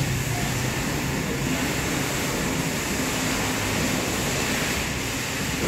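Steady mechanical drone with an even hiss and no separate events.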